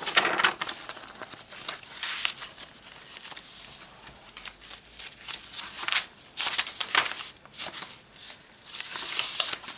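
Pages of a handmade paper journal being turned and handled: dry paper rustling and flapping several times, with quieter handling between.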